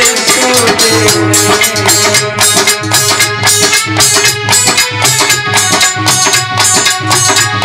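Instrumental interlude of live Indian folk music: a sustained reed-keyboard melody over a steady drum beat with a shaker-like rattle, and a short falling melodic phrase at the very start.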